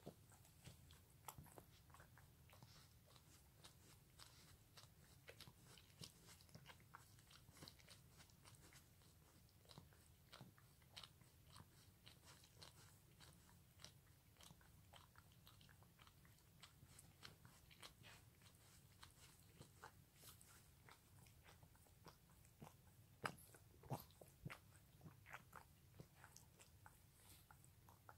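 A Pekingese dog licking its front paw: a run of faint, irregular wet smacking clicks from its tongue and mouth, a few louder ones a little over two-thirds of the way through. The paw has been weakened by a cervical disc herniation, and the owner wonders whether the licking means feeling is returning to it.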